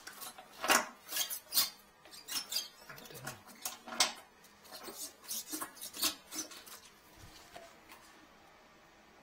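Clattering of hard objects being handled: a quick, irregular run of clicks, knocks and small squeaks that dies away about seven seconds in.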